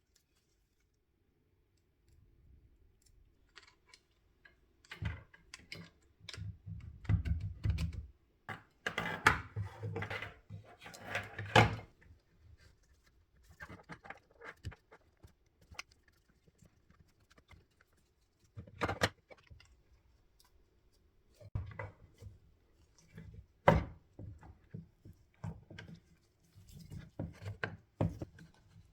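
Irregular clicks, knocks and rattles of jig saw parts being handled and fitted by hand, with a few sharper knocks along the way; no motor is running.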